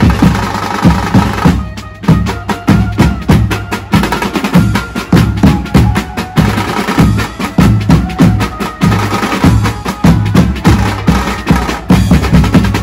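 Band drums played fast and loud, dense rapid hits over deep thumping beats, with a melody instrument carrying a tune above them; the drumming drops out briefly just before two seconds in, then picks up again.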